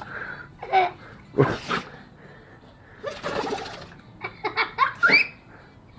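A pitbull sneezing and snorting in a fit: several short, loud bursts spread out, then a quick string of them near the end.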